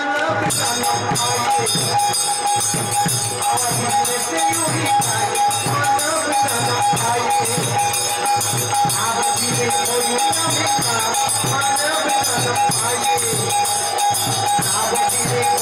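Instrumental kirtan passage: a harmonium holds a steady note while khol drums play a fast, even rhythm and kartal hand cymbals ring without pause.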